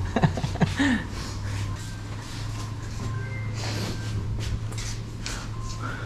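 A brief voice in the first second, then a steady low hum with scattered rustling and shuffling sounds.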